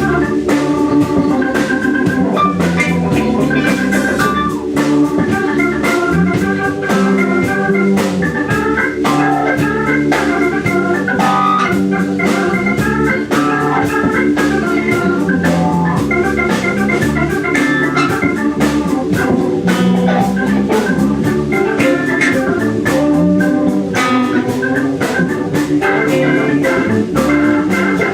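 Funk band playing an instrumental stretch led by an organ: quick runs and held chords over a steady drum beat and low bass notes.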